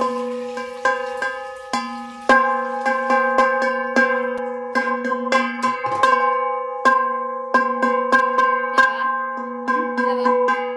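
A metal bell struck over and over, about two to three strokes a second with a brief pause partway through, each stroke ringing on at the same pitch.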